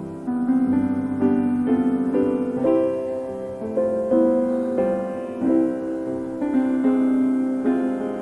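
Slow solo piano music, a new note or chord struck about every half second to a second and left to ring.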